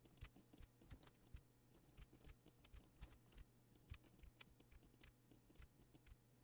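Faint clicks of a computer keyboard and mouse: one key tapped over and over at an uneven pace, a few clicks a second.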